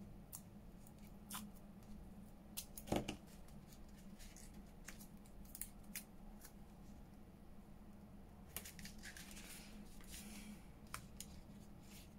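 Faint craft-table handling: scattered small snips and clicks, with brief rustles, as paper and washi tape are worked by hand with scissors. One louder knock about three seconds in.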